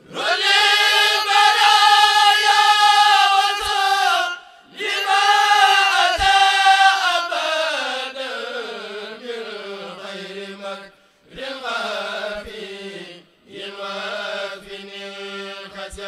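A kourel, a group of men, chanting a Mouride khassida together without instruments: long drawn-out sung phrases that break off for a breath about four, eleven and thirteen seconds in.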